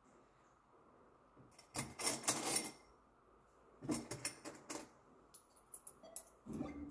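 Bally-Wulff Rototron "Sonnenkrone" slot machine: two clusters of metallic clicking and rattling, then lighter scattered clicks. Near the end a steady hum begins as the machine starts a game and its reels spin.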